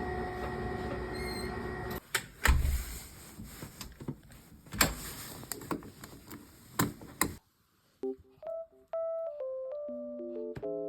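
A steady hum for about two seconds, then a string of knocks and clatters of things being handled, then a light background tune of short keyboard-like notes from about seven seconds in.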